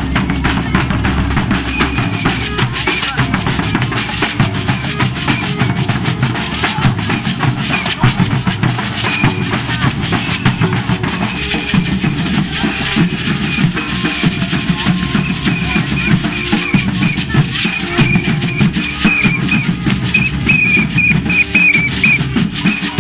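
Drumming: hand-played drums keeping a steady percussion beat.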